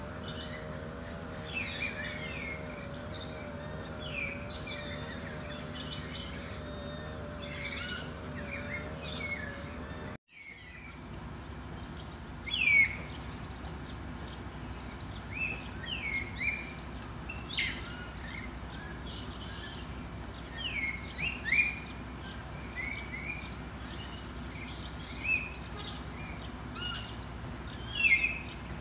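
Small birds chirping in quick, short, falling notes over a steady high insect buzz. The sound cuts out for a moment about a third of the way through.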